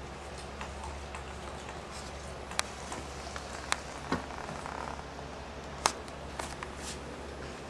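Scattered small clicks and taps from a puppy mouthing and licking another pet's paw, a handful of sharper clicks standing out, over a steady low hum.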